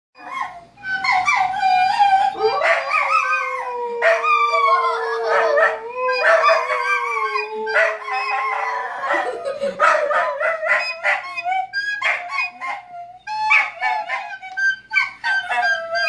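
Two dogs howling along to a recorder: in the first half the recorder holds one long steady note while the wavering howls rise and fall above it; in the second half the howls break into shorter howls and yips.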